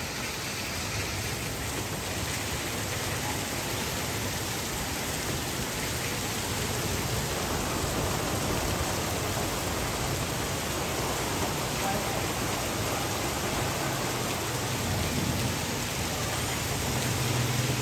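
Steady rain falling on a paved street, an even hiss of drops on wet ground and surfaces, with a faint low hum near the end.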